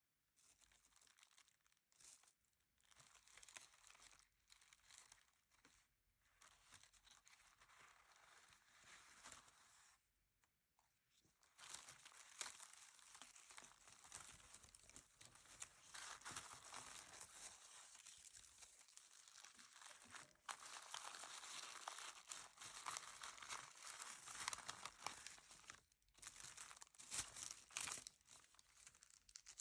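Faint crinkling and tearing of paper and plastic as stationery and sticker sheets are handled. It comes in short spells with gaps over the first ten seconds, then runs more steadily from about twelve seconds in.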